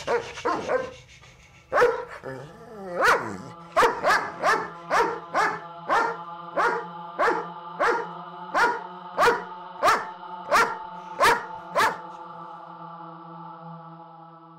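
A dog alarm-barking in a steady, repeated run of sharp barks, about three every two seconds, that stops about twelve seconds in. Underneath is a sustained music drone of held notes that lingers after the barking ends.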